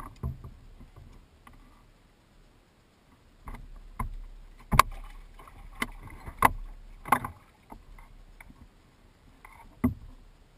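Sharp knocks and clicks as fishing tackle is handled in a canoe, about seven spread over several seconds, the loudest near the middle and one more near the end.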